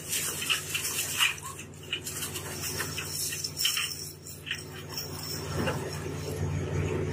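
Steady low drone of a fishing ship's deck machinery, with scattered knocks and watery splashes from a brailer net of tuna being lowered into the deck hatch.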